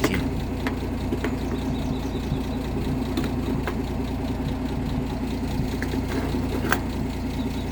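1958 AMC Rambler Super engine idling steadily with no misfire, running on a Weber carburettor and a new distributor cap. A few sharp ticks sound over the hum, one just after the start and one near the end.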